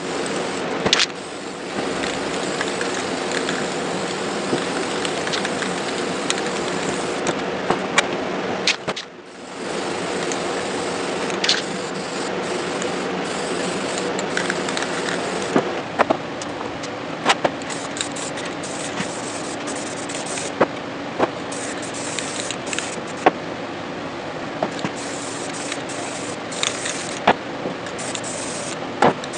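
Aerosol spray-paint can hissing in long sprays as paint goes onto wooden sign letters, with a short break about nine seconds in. Sharp clicks come here and there, over a steady low hum.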